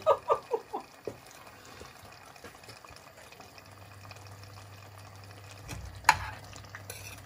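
A few short vocal sounds in the first second, someone reacting to a hot mouthful, then stew simmering gently in a cast-iron pot over a steady low hum. A single sharp click about six seconds in.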